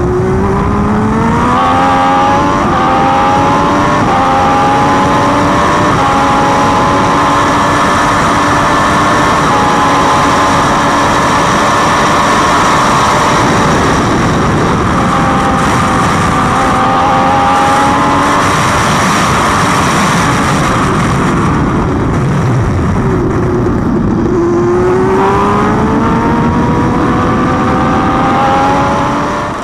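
IndyCar's twin-turbocharged V6 at racing speed heard from the cockpit, with a steady rush of wind noise. The revs climb in the first couple of seconds, hold high, sag and recover around the middle, then climb again near the end as the car accelerates out of the corners.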